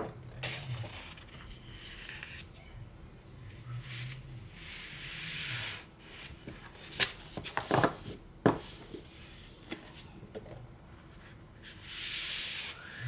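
Sheets of scrapbook paper rustling and sliding as they are handled and laid down on a wooden table, with a longer swell of paper sliding about midway and again near the end. A few sharp paper taps come in quick succession around the middle.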